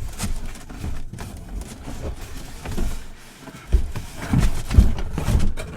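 Handling noise as items are moved about in a cardboard box, with rustling and several dull thumps in the second half.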